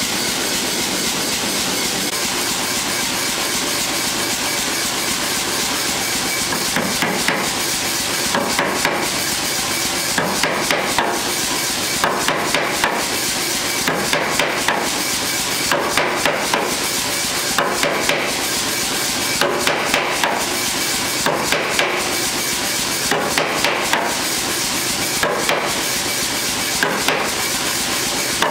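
Sahinler self-contained air power hammer running steadily, then from about six seconds in striking a glowing O-1 tool-steel bar on a grooved tooling die in short bursts of three or four blows, repeated every second or two.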